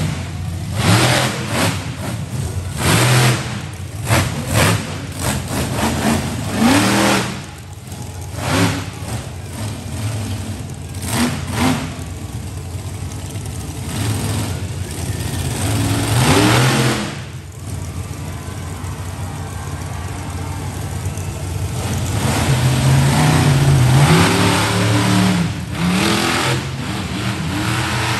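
Monster truck engine revving hard in repeated throttle bursts, the pitch sweeping up on each, with a longer sustained run of high revs near the end.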